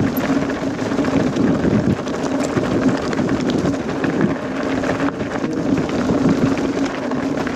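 Niner mountain bike rolling over a rough, stony trail: steady tyre noise with clicks and clatter from the bike, and wind on the microphone.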